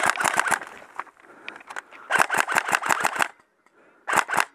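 Airsoft rifle firing in rapid bursts of sharp shots, about ten a second: a short burst at the start, a longer one of about a second two seconds in, and a couple of shots near the end.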